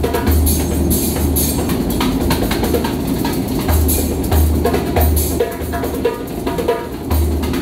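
A busker's djembe-style hand drum playing a quick rhythm that mixes deep bass strokes with sharp, higher slaps, over the steady rumble of the moving metro train.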